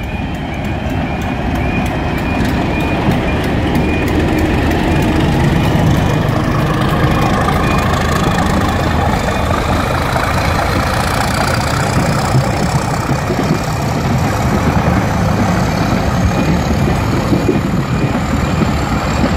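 British Rail Class 31 diesel locomotive passing close by, its engine running steadily, then the rumble of its coaches rolling past on the rails. A level crossing warning alarm repeats in the first seconds.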